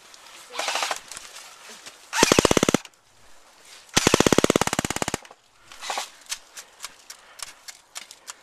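Airsoft electric gun firing two full-auto bursts, a short one about two seconds in and a longer one of about a second a little later, each a rapid, even rattle of shots. Fainter scattered single clicks of shots follow near the end.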